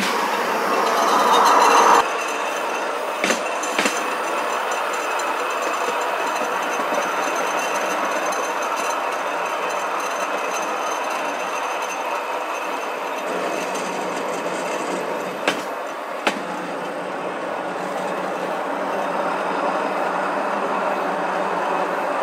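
Rail bike, a mountain bike fitted to run on the railway line, rolling steadily along the steel rails. It makes a continuous rolling rumble, with two pairs of sharp clicks, one about three seconds in and one past the middle, as its wheels pass over rail joints.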